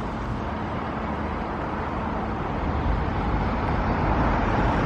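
Steady outdoor rumble and hiss with no clear single event, growing gradually louder.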